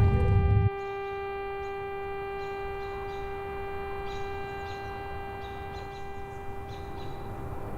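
A steady, held droning tone with overtones, like a sustained note on a film soundtrack. A loud low rumble stops abruptly just under a second in, and faint scattered ticks sound over the drone.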